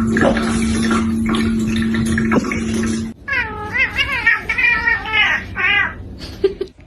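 A domestic cat yowling in a run of wavering, pitch-bending meows, starting about three seconds in. Before that there is a steady hum with hiss-like noise.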